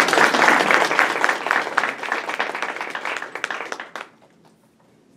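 Audience applauding, thinning out and stopping about four seconds in.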